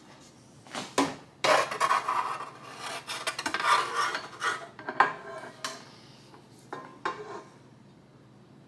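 Presto Pizzazz Plus baking tray being set down onto the oven's base and fitted into place: scraping, rubbing and clattering for about four seconds, then two light knocks a little later.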